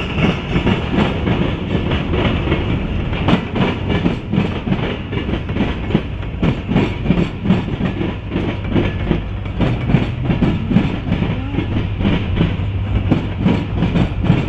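Freight cars (covered hoppers and open-top hoppers) of a Norfolk Southern local rolling past as the train is shoved backwards, steel wheels clattering over rail joints in a dense, irregular run of clicks over a steady low rumble.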